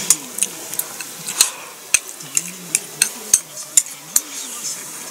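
Chopsticks clicking against a ceramic bowl while eating from it: about ten sharp, irregular clicks.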